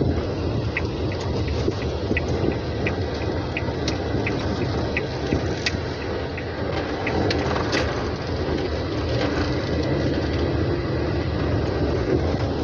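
Car running and rolling along heard from inside the cabin: a steady low rumble of engine and road noise. A light, regular ticking, about one and a half ticks a second, runs through the first half.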